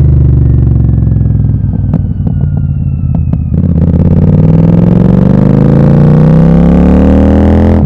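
Royal Enfield Super Meteor 650's parallel-twin engine through an open aftermarket Gursewak exhaust with the dB killers removed. The revs fall, with a string of sharp pops and crackles on the overrun from about two to three and a half seconds in, then the engine note climbs steadily as the revs rise.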